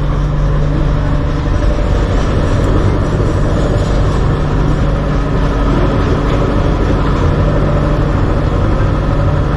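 A tram running: a steady low hum over a constant noisy din.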